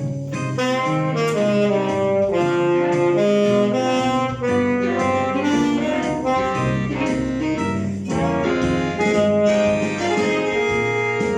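Alto saxophone playing a fast, continuous run of changing notes from an étude.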